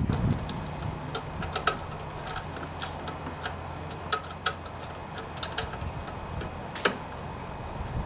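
Irregular light metallic clicks and ticks as the end fitting of a steel lawnmower control cable is hooked onto a small lever and seated in its bracket, over a steady low hum.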